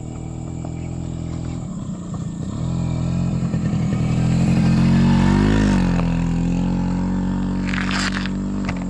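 Motorcycle engine running steadily and getting louder, with a brief rev about five seconds in, then holding steady. A few sharp clicks come near the end.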